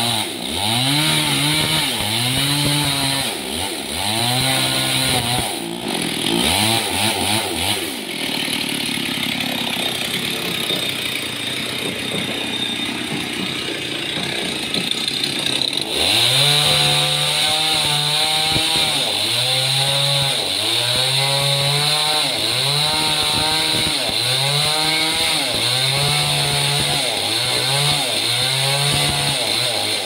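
Petrol chainsaw cutting into a solid trembesi (rain tree) slab, its engine revving up and easing off again about once a second. Around the middle it holds a steadier note for several seconds before the rev cycles resume.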